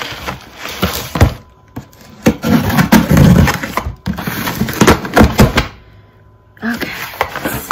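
Cardboard shipping box being torn open by hand: packing tape ripping and cardboard flaps and box knocking, a series of sharp rips and knocks broken by two short pauses.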